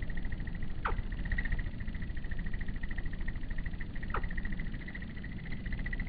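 Outdoor evening ambience: a steady, rapidly pulsing trill at one pitch over a low rumble, with two short whistles falling in pitch about three seconds apart.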